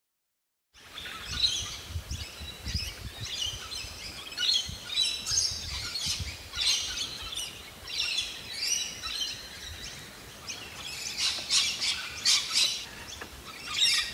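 Morning chorus of many birds chirping and calling over one another, starting after a second of silence.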